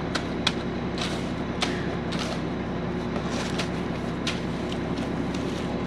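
An engine running steadily under scattered short, sharp scrapes and clicks, as a screed board is dragged over freshly poured concrete.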